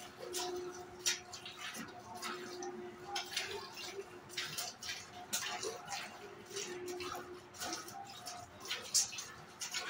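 Milk squirting in short spurts into a pail as a cow is milked, irregular at about one or two spurts a second, over a faint on-and-off steady hum.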